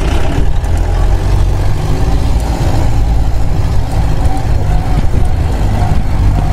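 Land Rover driving along a rough mountain road: a steady, heavy, low rumble of engine and road noise with rattling over it.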